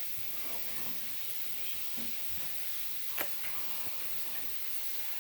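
Steady background hiss with a few faint, short clicks, the clearest about three seconds in: a cockatiel's beak pecking at rice on a plate.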